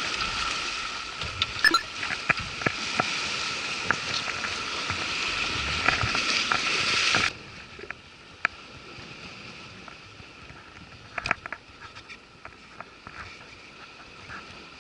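Sea washing against a rocky shore, a steady hiss with scattered small clicks. About seven seconds in it cuts off abruptly to a much quieter background with only occasional faint clicks.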